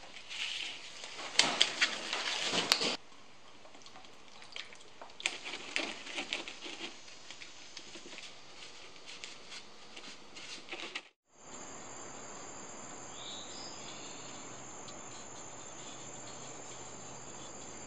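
Scattered clicks and rustles of handling, loudest in the first three seconds, then after a brief dropout a steady high chirring of crickets.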